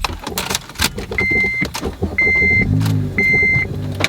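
Keys rattling at the ignition, then a dash warning chime beeping about once a second as the Honda Civic Si (FA5) engine is started a little under three seconds in and settles into a steady idle.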